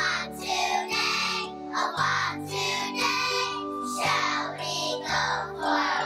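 Background music, with a bass line that moves to a new note about once a second.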